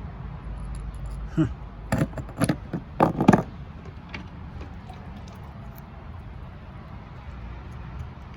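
Cut rock pieces clacking against each other and on a hard surface as they are handled, a cluster of sharp knocks between about one and a half and three and a half seconds in, over a steady low rumble.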